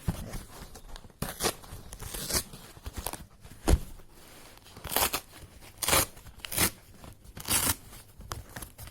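Amazon shipping packaging being torn and ripped open by hand in a series of separate rips and crinkles, with a thump about halfway through.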